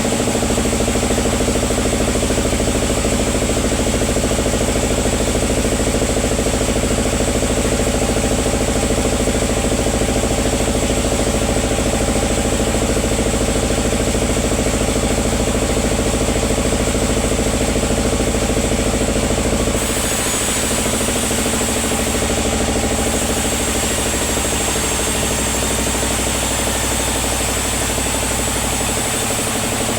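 Sawmill machinery running steadily with an engine-like hum. The sound changes abruptly about two-thirds of the way through, then runs on steadily.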